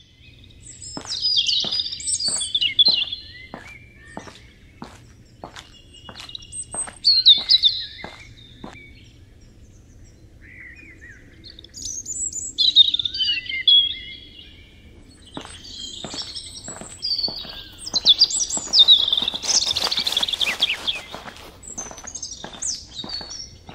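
Several songbirds singing in short, varied phrases. Under them run footsteps, about two steps a second, which stop for several seconds midway and then start again.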